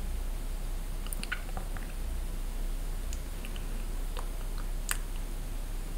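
Quiet room tone with a low steady hum, broken by a few faint, scattered short clicks and ticks.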